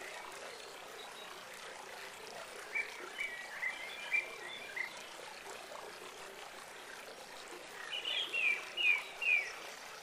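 Animal calls: two bouts of short, high chirping notes repeated several times, the first about a third of the way in and a louder set near the end, over a steady outdoor hiss.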